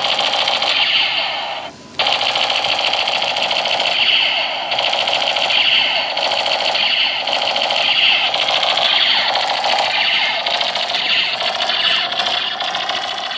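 Toy gun fired in long automatic bursts: a continuous, rapid rattling fire with a brief break about two seconds in.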